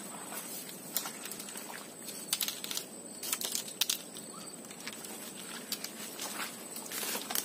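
Footsteps and rustling through dry leaf litter and undergrowth: short, irregular crunches and crackles over a steady hiss, most clustered about two and a half to four seconds in and again near the end.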